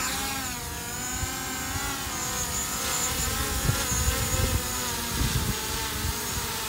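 DJI Mavic Pro quadcopter, carrying an added gimbal-mounted thermal camera, spinning up its motors at the start and lifting off into a hover. Its propellers then give a steady whine of several tones that waver in pitch as it holds position, with strong wind buffeting the microphone.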